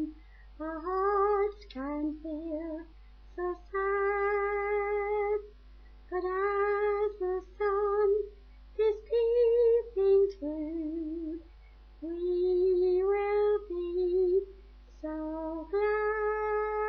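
A woman singing a simple song unaccompanied, in short phrases with vibrato and brief pauses between them, ending on a long held note.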